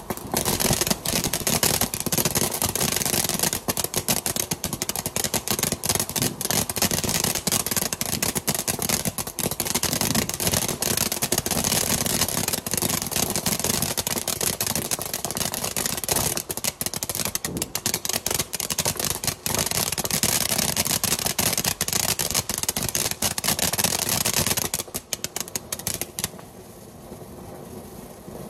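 Asda Sugar Skull firework fountain burning: a loud, continuous hissing spray of sparks thick with rapid crackles. It starts suddenly and falls much quieter about 25 seconds in as the effect dies down, though it is still burning.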